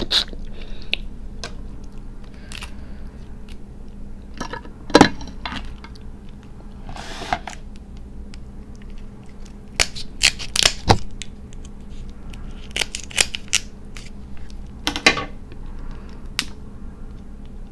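Cooked crab shell cracking and snapping as it is broken open and picked apart by hand, in scattered sharp cracks with a loud one about five seconds in and a quick run of them around ten to eleven seconds, with soft handling noises between.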